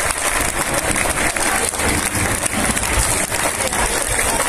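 Large crowd applauding, a steady hiss of many hands clapping.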